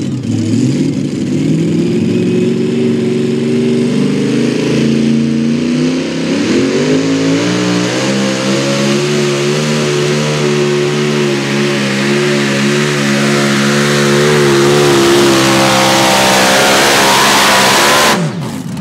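Super modified two-wheel-drive pulling truck's racing engine at full throttle while pulling the sled. Its pitch climbs a few seconds in, then holds steady and grows louder before cutting off abruptly near the end.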